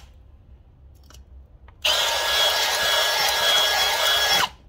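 Cordless drill spinning a bit in a freshly drilled hole in a thin metal fender bracket, opening the hole out a little larger. After a short pause with a couple of faint clicks, the drill runs with a steady whine for about two and a half seconds, then stops.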